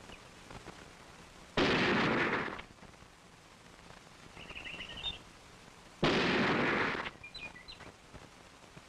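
Two shots from a Remington Model 742 semi-automatic centerfire rifle, about four and a half seconds apart, each a sudden loud report that rings on for about a second before dying away.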